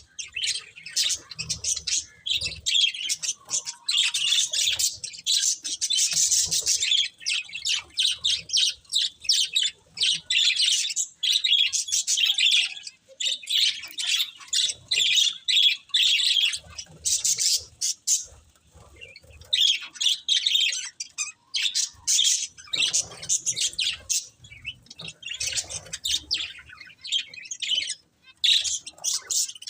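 Budgerigars chirping and chattering in a fast, nearly unbroken stream of high chirps, with a few short lulls.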